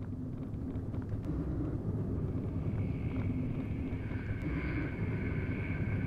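Steady road and engine noise heard inside the cabin of a moving car, with a faint steady high tone coming in about two and a half seconds in.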